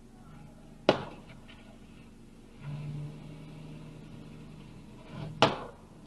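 Two sharp thuds, one about a second in and one near the end, heard from inside a car. Between them, a steady low engine drone rises for about two and a half seconds.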